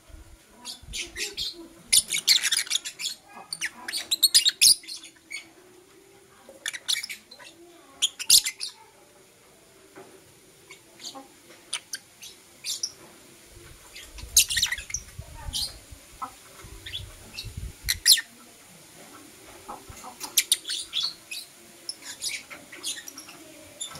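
Lovebirds chirping: short, sharp, high-pitched chirps in irregular clusters and quick runs, with a low rumble underneath in the middle.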